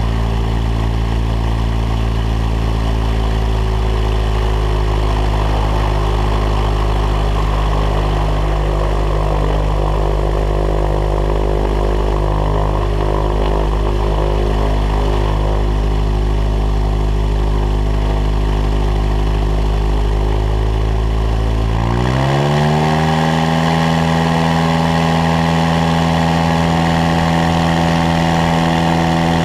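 A light aircraft's engine and propeller running at low, steady taxi revs. About three quarters of the way through, the engine speeds up quickly and then holds steady at the higher revs.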